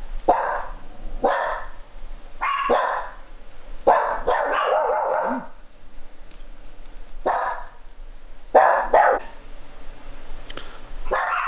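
Small dogs barking, about eight sharp barks at uneven intervals.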